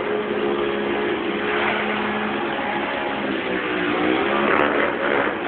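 Ducati Monster's L-twin engine running under a stunt rider. It holds a steady note for the first couple of seconds, then wavers up and down in pitch as the throttle is worked, from about three and a half seconds in.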